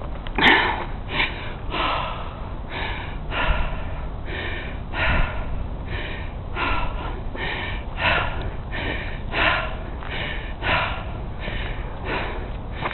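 Quick, heavy breathing and sniffing close to the microphone, about one and a half breaths a second.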